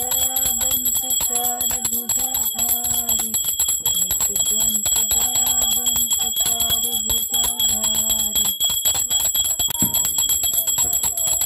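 Small brass puja hand bell rung rapidly and without a break during aarti, its high ringing tones held steady. A woman's devotional singing runs over it and stops near the end.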